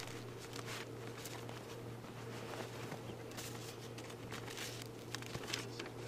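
Paper rustling and crackling in short, irregular bursts as a piece of mail is handled and opened, over a steady low hum.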